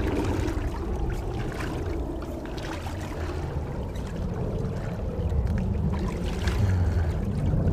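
Water sloshing and swishing around rubber waders as a person wades slowly along a riverbank through shin-to-knee-deep water, with scattered small splashes from the steps.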